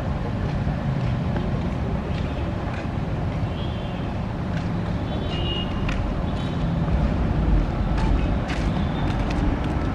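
Diesel locomotive engine rumbling steadily as the train approaches, swelling slightly about seven seconds in.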